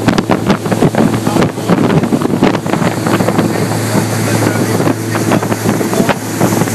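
Motorboat running fast: a steady engine hum under heavy wind buffeting on the microphone and rushing water.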